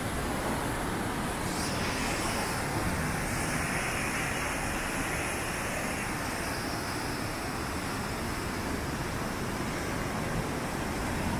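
River in flood, swollen with brown runoff after heavy rain, rushing through rapids: a steady roar of whitewater.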